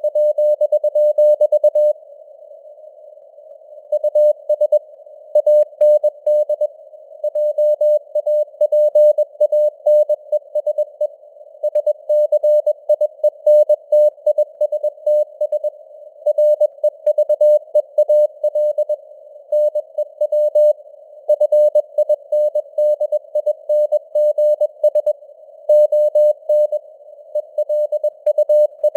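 Morse code sent at 21 words per minute as a single steady tone keyed on and off in dots and dashes, inside a narrow band of simulated radio hiss. About two seconds in there is a pause of about two seconds between groups.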